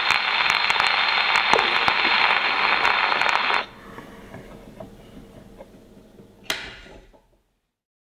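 Surface hiss and crackle of a shellac 78 record played through the wooden horn of a circa-1910 Thorens gramophone after the music has ended, cutting off sharply about three and a half seconds in as the tone arm is lifted. A few faint clicks of the soundbox and arm follow, then one sharp click near the end.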